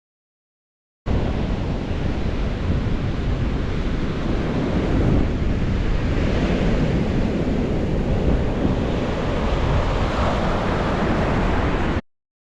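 Ocean surf washing on a beach, with wind rushing over the microphone. The sound cuts in abruptly out of total silence about a second in and cuts off just as abruptly near the end.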